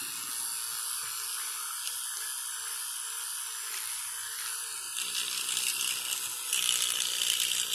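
Electric toothbrush buzzing steadily with a high whirr while held against a cat's mouth; about five seconds in it gets louder and rougher.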